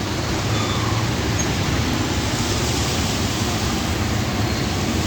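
Steady rushing street noise with a low rumble of vehicles, on roads flooded by rain.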